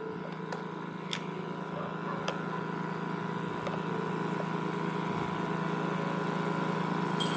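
Steady mechanical hum that grows slowly louder, with a few faint clicks.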